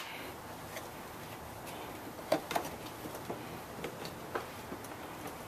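A few light plastic clicks and taps, spread out from about two seconds in, as the floor pan of a 2005 Honda Metropolitan (CHF50) scooter is flexed and worked loose from the front cowl's tabs.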